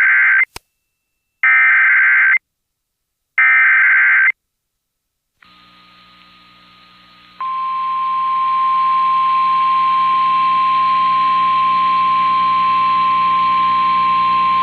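Emergency Alert System activation for a tornado warning. It opens with three bursts of SAME header data, a buzzing digital warble each about a second long and two seconds apart. After a faint hum and hiss, the National Weather Service's steady single-pitch 1050 Hz warning alarm tone starts about seven seconds in, over background hiss.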